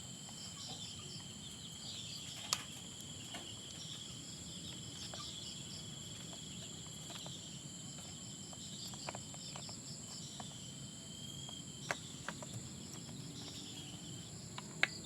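Insects chirring with steady high tones. There are a few sharp clicks, the loudest about two and a half seconds in and just before the end.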